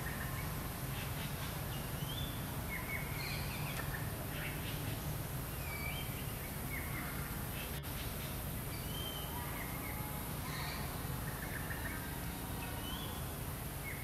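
Wild birds chirping and whistling in short, scattered calls, many quick rising or falling notes, over a steady low rumble of outdoor background noise.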